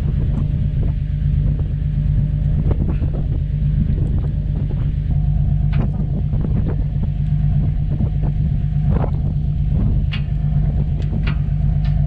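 John Deere 8310 tractor's six-cylinder diesel engine idling steadily, with a few sharp clicks and knocks over it.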